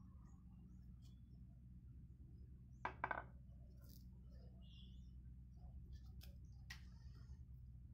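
Quiet handling of a damaged cricket bat over a low steady hum: one short clatter of a few quick knocks about three seconds in, then a couple of light clicks near the end.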